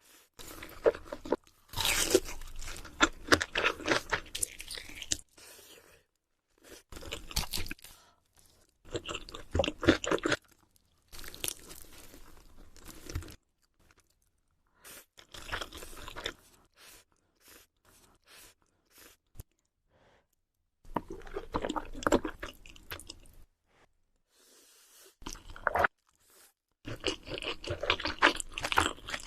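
Close-miked crunching and chewing of crisp food, in bursts of loud bites and crackles separated by several short stretches of complete silence.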